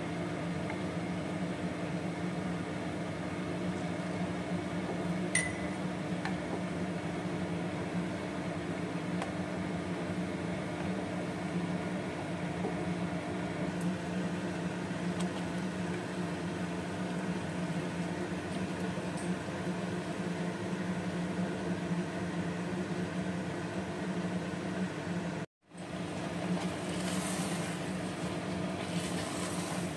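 Steady mechanical hum from a kitchen appliance, with a single click about five seconds in. Near the end the sound drops out for a moment, then a wooden spatula scrapes and stirs thick reduced milk in a steel pan.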